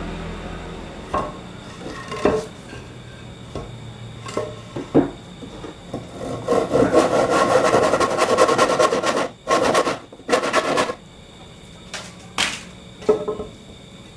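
Hand work on wood: a few scattered knocks, then about two and a half seconds of steady rasping or rubbing on wood in the middle, followed by two short scrapes and a few more knocks.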